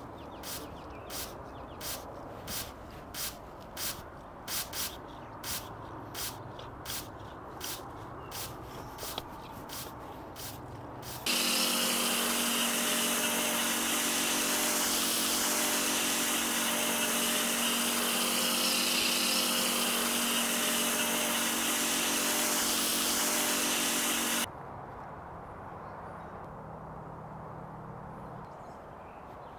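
Hand trigger sprayer squirting over and over, about two sprays a second. About eleven seconds in, a pressure washer's foam cannon starts spraying snow foam: a loud, steady hiss over the washer's motor hum, which cuts off suddenly near the end, leaving a faint low hum.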